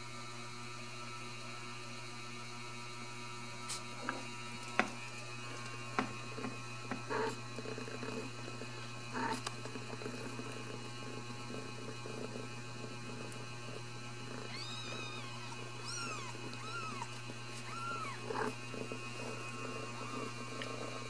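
Newborn Ragdoll kittens mewing in thin, high squeaks while nursing, several short rising-and-falling mews coming close together over the last few seconds, with small rustles and clicks earlier. A steady electrical hum underlies it.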